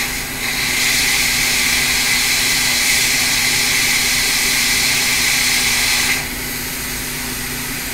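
Hot air rework station blowing a steady hiss of air that cuts off about six seconds in. It is reflowing the solder under a replacement surface-mount capacitor so the part can be straightened.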